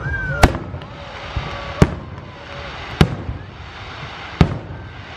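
Fireworks show: aerial shells bursting in four sharp bangs, about one every one and a half seconds.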